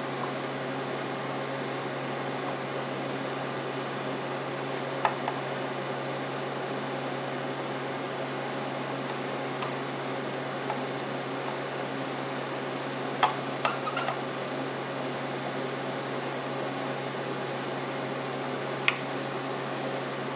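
Steady room hum with a few light clicks and taps as the cover of a manual Cannon downrigger is screwed back down.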